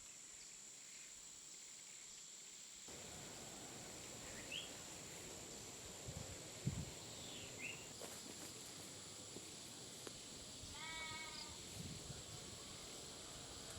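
Quiet outdoor farm ambience with a steady high hiss. There are two short rising bird chirps, a single thud about seven seconds in, and one short wavering animal call near the end.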